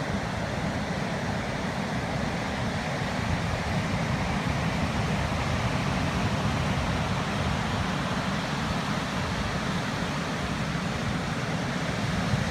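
Steady rush of storm surf and strong typhoon wind, the wind buffeting the microphone into a heavy low rumble.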